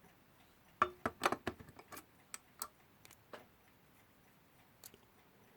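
Small metal clock parts clicking and tapping as they are handled and fitted into the clock's frame: a quick cluster of taps about a second in, then a few scattered clicks.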